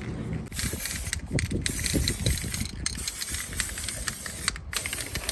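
Aerosol spray can of brake-caliper paint hissing in a series of bursts with short breaks between them, as a brake caliper is sprayed.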